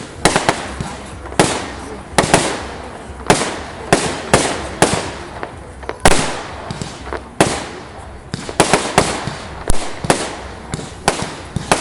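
Fireworks display: a steady series of loud bangs, about one or two a second, each followed by a short fading crackle.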